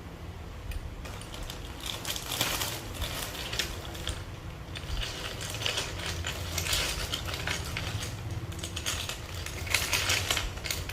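Plastic keycaps clicking and clattering as they are handled and set down, in irregular bunches of small sharp clicks, busiest twice.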